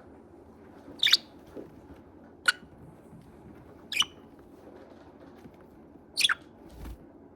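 Pet budgerigar giving four short, sharp chirps, spaced a second and a half to two seconds apart.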